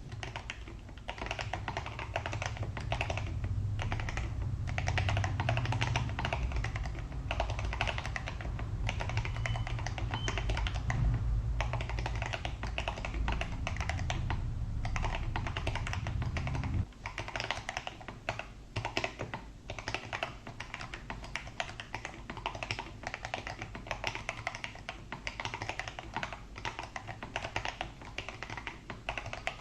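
Typing on a mechanical keyboard with stock, unlubed Akko CS Jelly Black linear switches and Cherry-profile keycaps: a steady, dense run of loud, crisp keystrokes. A low hum underneath cuts off suddenly about two-thirds of the way through, and the typing sounds quieter after it.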